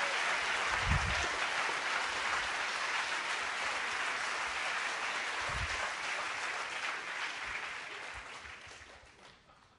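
Audience of students applauding, the clapping slowly dying away over about nine seconds, with two brief low thuds along the way.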